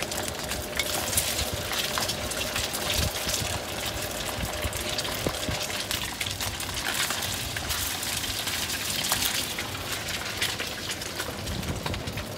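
Batter frying in hot oil in a wok over a gas burner, sizzling steadily, with the metal spatula scraping and clicking against the wok.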